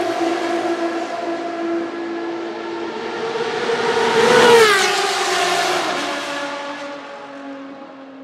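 Ferrari V12 track cars running flat out down a wet straight. The note of one car falls away as it recedes, then a second car approaches and passes about four and a half seconds in, its pitch dropping sharply as it goes by before fading into the distance.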